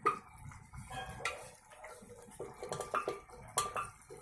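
Thick mashkalai dal with spinach simmering in an aluminium karahi, bubbles plopping and popping at irregular intervals. A sharp clink at the very start is the loudest sound.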